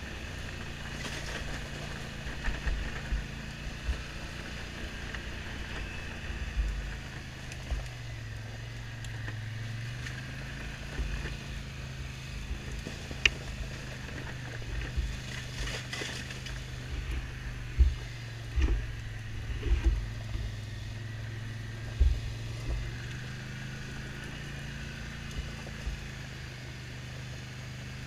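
ATV engine running at a steady cruising pace, its pitch rising and falling slightly, with occasional low thumps along the way.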